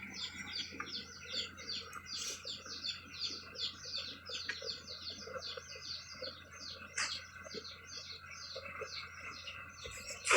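Bird chirping: a quick, steady run of short, high repeated chirps, about four to five a second.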